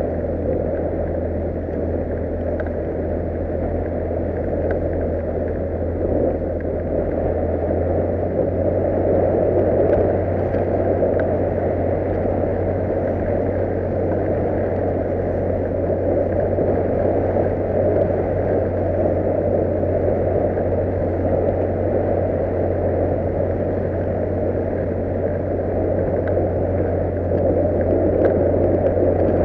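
A 40 hp outboard motor running steadily at speed, pushing a small boat through the sea, with the rush of water from its wake.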